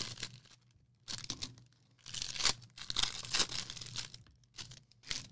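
Baseball card-pack wrappers being torn open and crinkled by hand, in short bursts of tearing and rustling with brief pauses between.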